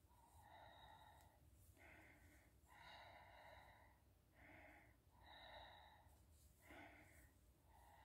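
Near silence, with faint breathing close to the microphone: soft breaths in and out about once a second.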